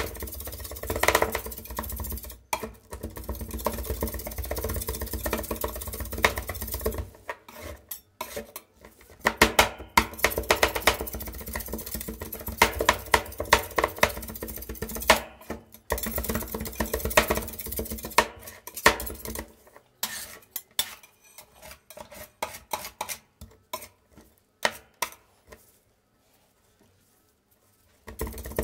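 Two metal spatulas chopping and scraping rapidly against the steel cold plate of a rolled ice cream machine, a fast irregular clatter of clicks as they break up frozen ice cream with chocolate wafer pieces. A low machine hum runs underneath in the first part and stops about two-thirds of the way through, and the chopping thins out near the end.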